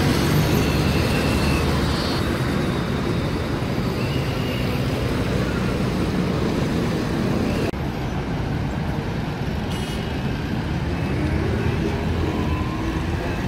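Steady motor-vehicle and road-traffic noise, a continuous low rumble with hiss, which turns duller about eight seconds in.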